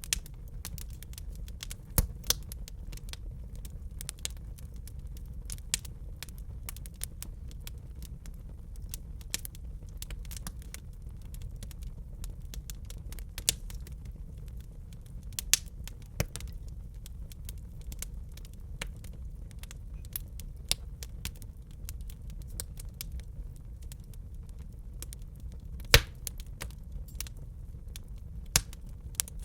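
Wood fire crackling in a fireplace: frequent small snaps and pops over a steady low rumble, with louder pops about two seconds in and near the end.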